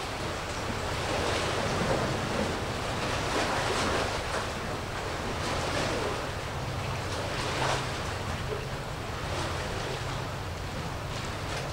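Sea waves washing in, swelling and ebbing every second or two, with wind on the microphone and a steady low rumble underneath.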